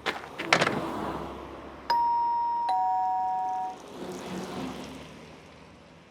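Sharp clicks, then a two-tone ding-dong doorbell chime: a steady high note about two seconds in, then a lower note, both stopping together after about two seconds.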